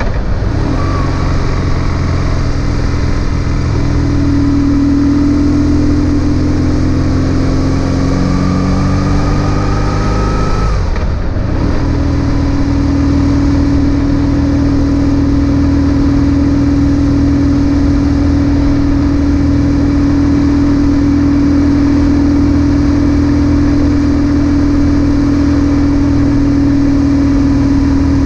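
BMW R1150 GS boxer-twin engine running under way. Its pitch climbs as the bike accelerates over the first ten seconds or so, dips briefly about eleven seconds in, then holds steady at a constant cruising speed.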